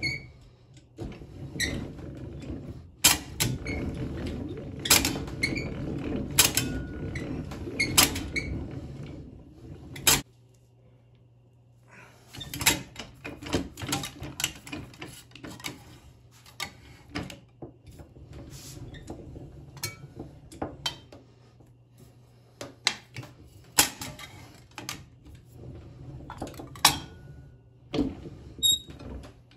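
Hand-cranked slip roll rolling a sheet-metal muffler tube, its rollers and gears creaking and grinding, with sharp metallic clicks. The grinding stops about ten seconds in. After a short pause the tube is worked again with many separate clicks and knocks.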